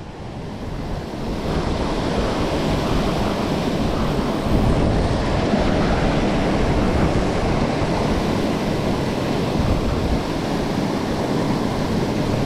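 Rushing water of a small waterfall in a mountain stream, a steady noise that swells in over the first second or so and then holds.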